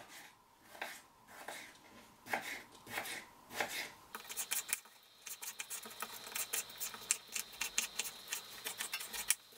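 Kitchen knife cutting raw potato into cubes on a wooden cutting board: separate cuts at first, then a fast, even run of chops from about four seconds in.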